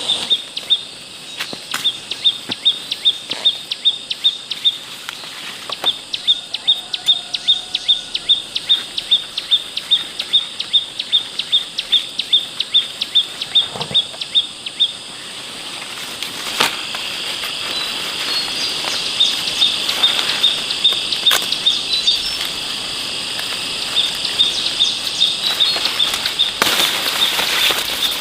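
High, evenly repeated chirping from insects in the forest, about three to four chirps a second in long runs, with a steady high buzz joining in the second half. There are a few short knocks.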